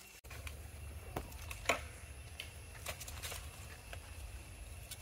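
Dry leaves crackling and rustling as baby macaques move over them, a scatter of small clicks with one louder snap about a second and a half in, over a steady low rumble.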